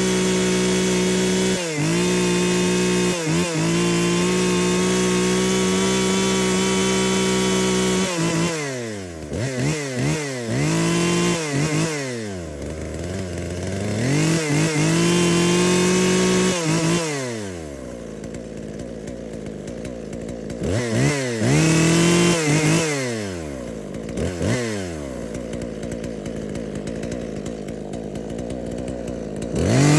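2007 Husqvarna 142 two-stroke chainsaw running at high speed, steady for about eight seconds, then blipped several times, its pitch falling and rising, dropping to a lower idle between revs, and revving up again at the end.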